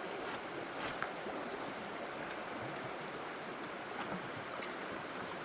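Creek water flowing: a steady, even rush with a few faint clicks.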